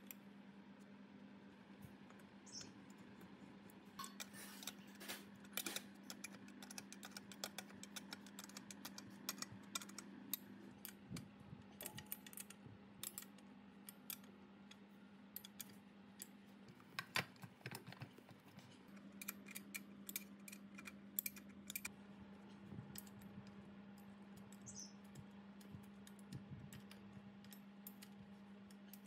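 Faint, scattered metal clicks and taps as a cast-iron air compressor cylinder is fitted over its piston and the base nuts are turned with a wrench, over a steady low hum.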